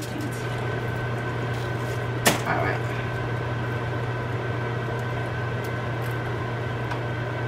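Steady electrical hum of a kitchen appliance throughout. About two seconds in, a single sharp tap and a brief foil rustle as a frozen plantain piece is set down on a foil-lined baking sheet.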